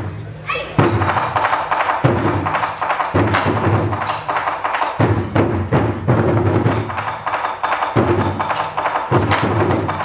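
Ensemble of Japanese taiko drums struck hard with wooden sticks: deep booms and sharp strokes in a driving rhythm.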